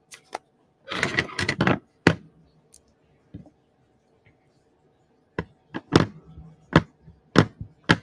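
Paper-handling rustle about a second in, then a run of about six sharp taps and knocks as a rubber stamp on its clear acrylic block is inked and pressed onto cardstock on the craft table.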